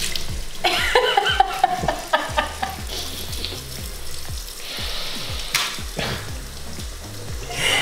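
Water running from a tap into a stainless steel sink while clothes are rinsed and wrung by hand, over background music with a steady beat.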